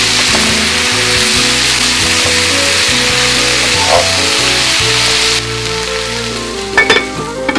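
Sliced peppers, tomatoes and onion sizzling loudly in oil in a frying pan, over background music. The sizzling cuts off suddenly about five seconds in, leaving the music, and a few sharp clicks come near the end.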